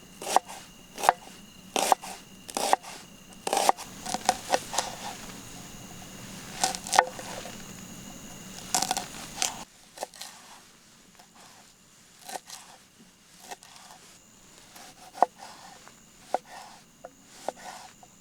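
A knife chopping food on a cutting board: irregular knocks, sometimes in quick clusters. About ten seconds in they become fewer and quieter.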